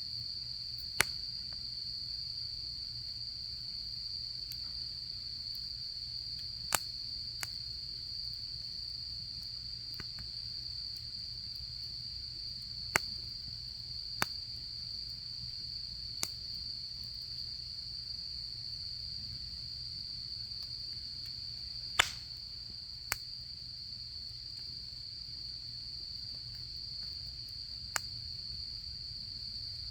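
Autumn insects trilling steadily in one high, unbroken tone, over the low rumble of a campfire that pops sharply now and then, about nine times, the loudest pop a little past the middle.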